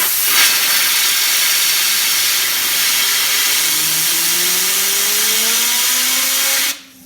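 A hand-held fidget spinner being driven up to high speed under a loud, steady rushing hiss: its whirring tone rises steadily in pitch as it speeds up. Near the end the hiss cuts off suddenly, and the spinner's hum carries on, starting to fall in pitch as it coasts.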